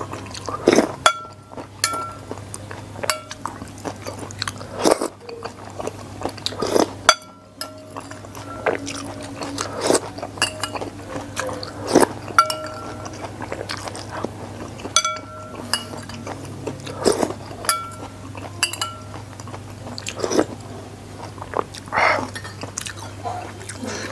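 Close-miked eating: a metal spoon clinking and scraping against a ceramic soup bowl, with chewing between spoonfuls. The clinks are sharp and ring briefly, every second or two.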